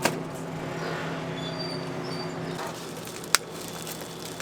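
A steady low mechanical hum that stops about two and a half seconds in, with a sharp knock at the start and a louder one a little after three seconds.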